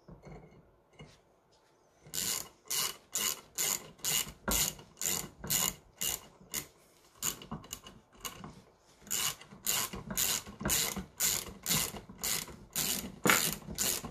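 Hand ratchet clicking in short back-and-forth strokes as screws are tightened, about two strokes a second, starting about two seconds in with a brief pause midway.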